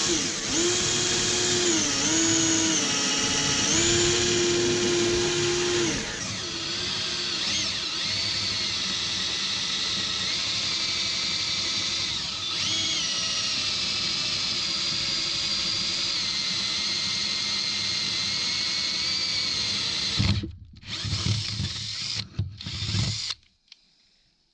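Handheld electric power tool running under load. Its motor whine shifts up and down in pitch for the first few seconds, then runs steady. It stops about twenty seconds in, followed by a few short bursts.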